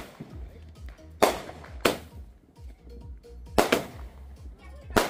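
Consumer aerial fireworks firing: about five sharp bangs at uneven intervals, two in quick succession about three and a half seconds in, with crackling and rumble between them.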